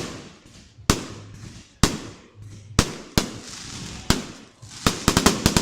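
Aerial fireworks exploding: single sharp bangs about a second apart, each trailing off in a rumbling echo, then a rapid string of bangs near the end followed by crackling.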